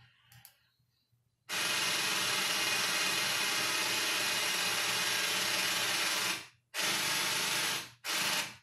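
A sound effect played through a TV: a loud, even hissing, machine-like noise with a faint whine in it. It switches on abruptly about a second and a half in, runs for about five seconds, then comes back as two shorter bursts of about a second each, each cut off sharply.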